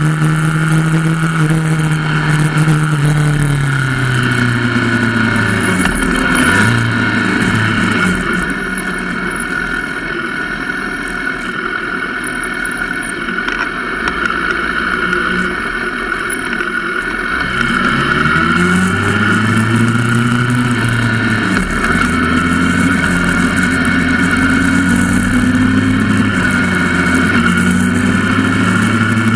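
Motorcycle engine on a track, recorded on board with wind rushing over the microphone. The revs drop off about four seconds in and the engine runs quieter for a stretch, then climbs again around eighteen seconds in and holds steady.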